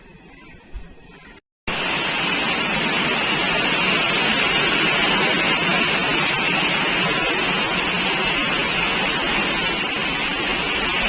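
Heavy rain falling in a steady, loud hiss, starting abruptly after a brief dropout about a second and a half in.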